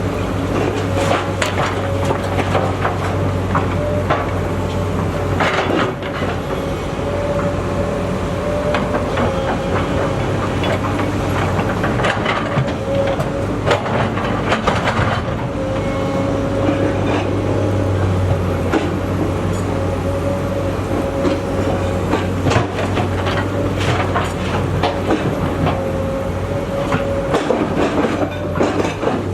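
SANY SY240C-9 hydraulic excavator working: a steady diesel engine drone with a held whine on top, and irregular clanks and knocks throughout.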